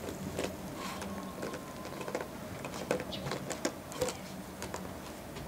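A Shiba Inu gnawing at a plastic drink bottle and its cap with its teeth: irregular clicks, taps and crackles of plastic.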